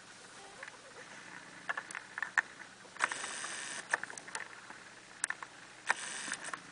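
Soft rustling of a hand stroking nursing kittens' fur and the towel beneath them, in two short spells, the first about three seconds in and the second near the end, with scattered small clicks and taps between.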